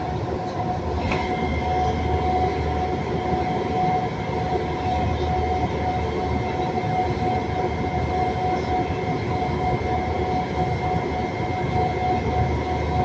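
VAL 208 rubber-tyred automatic metro train running at a steady speed through a tunnel, heard from inside the car: an even rumble with a constant high whine.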